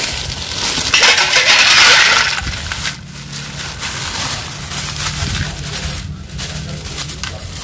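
Live clams tipped from a plastic bag into a steel basin of water, with shells clattering and water splashing. The loudest rush comes about a second in and lasts a second and a half. Softer handling sounds follow over a steady low hum.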